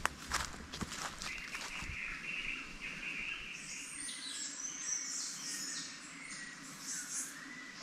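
A few footsteps in the first couple of seconds, then birds chirping and calling in the forest over a steady background.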